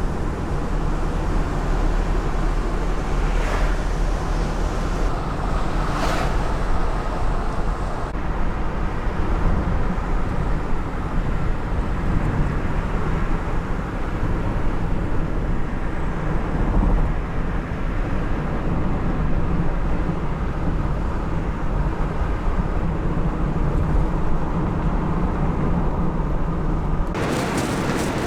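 Steady low rumble of wind buffeting the microphone at the seashore, with surf underneath. Near the end it changes abruptly to a brighter hiss.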